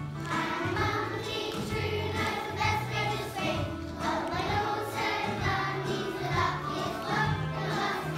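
A group of young children singing together along to music that has a bass line.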